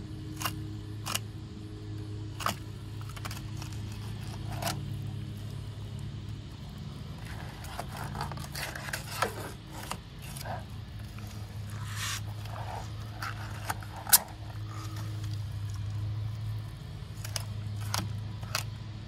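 Fillet knife scraping and clicking along a gag grouper's backbone and ribs as a fillet is cut away, in scattered short strokes over a steady low hum. One sharp click about fourteen seconds in is the loudest sound.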